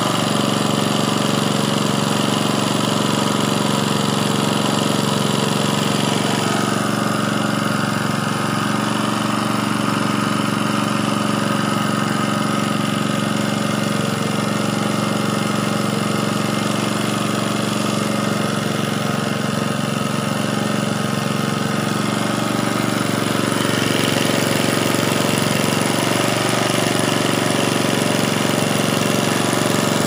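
A small engine running steadily at an even speed, with no change in pitch.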